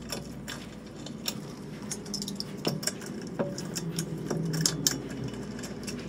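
Scattered metal clicks and clinks of a four-way lug wrench turning lug nuts onto a car's wheel studs.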